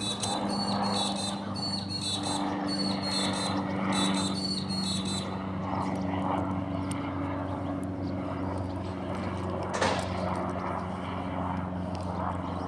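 Garbage truck's diesel engine running steadily. A run of repeated high-pitched chirps sounds over it for the first five seconds, and there is one brief sharp noise about ten seconds in.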